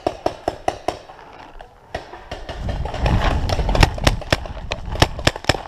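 Paintball markers firing rapid strings of sharp pops, about six a second, thinning out for a moment in the middle. A low rumble on the microphone rises under the shots about halfway through.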